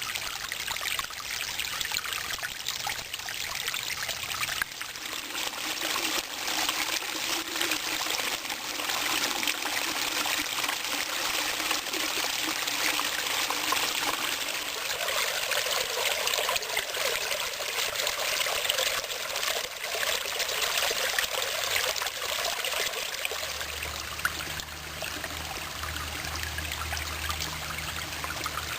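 Small brook babbling steadily as the water trickles and splashes over stones.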